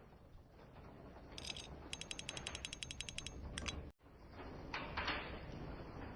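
Rapid ratchet-like mechanical clicking, about ten clicks a second for a second and a half, followed by a brief cut and a couple of louder swishes.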